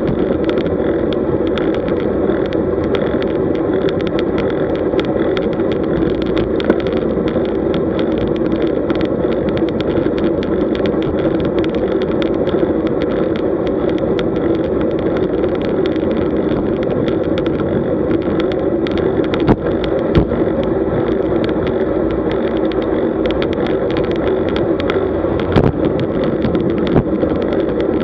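Steady rush of wind and road noise on a camera mounted on a road bicycle riding at about 37 km/h, with many small clicks and knocks through it.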